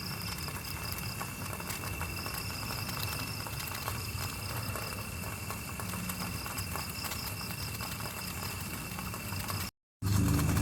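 Night insects, crickets, chirping: a steady high trill with a pulsing higher chirp over it, above a low steady rumble and faint crackling. The sound drops out briefly near the end.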